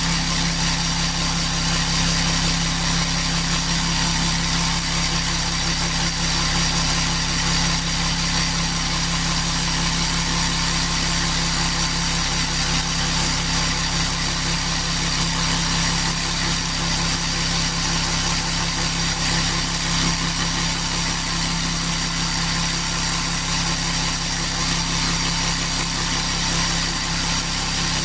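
Parkside 12 V cordless reciprocating saw, mounted under a homemade table as a precision saw, running steadily while its upright blade cuts a thin workpiece pushed against it by hand.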